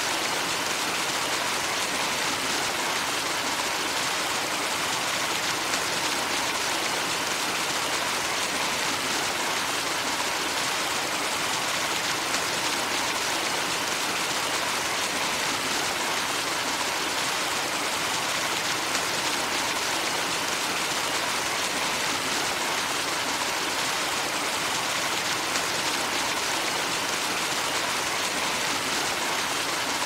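Fast river current flowing and splashing through turbulent white water: a steady, even rush of water.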